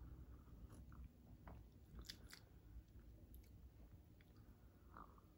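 Near silence with a few faint, scattered mouth clicks and small slurps of someone sipping tea from a teacup and swallowing.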